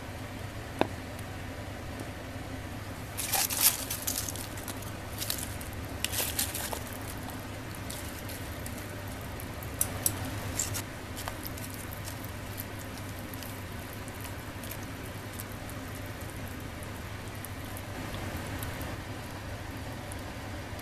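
Napa cabbage leaves being laid into a clay pot of boiling spicy broth: bursts of rustling and splashing about three to seven seconds in and again around ten seconds. Underneath, the pot bubbles faintly and a low hum runs steadily.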